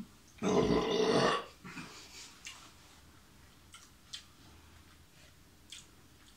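A man makes one loud, rough guttural sound from the throat, lasting about a second, about half a second in, while eating a whole raw lemon. A few faint mouth clicks follow.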